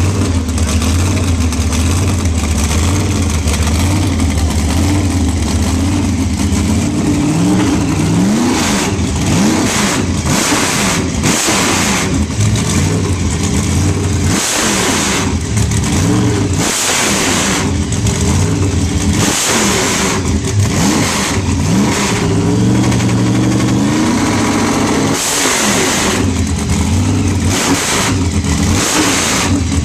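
Supercharged Chrysler Hemi V8 on an engine run stand, idling with a steady lumpy beat for several seconds. It is then blipped by hand at the carburetor throttle, the revs rising sharply and falling back about half a dozen times.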